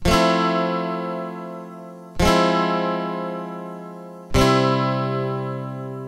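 Background music on acoustic guitar: three strummed chords about two seconds apart, each left to ring out and fade.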